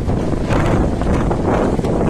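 Strong wind buffeting the microphone: a loud, steady noise heaviest in the low end, swelling and easing with the gusts.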